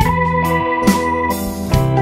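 Background music: held keyboard chords over a steady beat, a little more than one beat a second.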